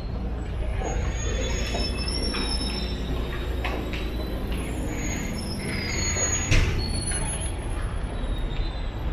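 Busy station-entrance ambience at rush hour: a crowd walking through swinging glass doors over a steady background of city and station noise, with scattered small clicks and squeaks and one sharp knock about six and a half seconds in. Street traffic noise opens up near the end.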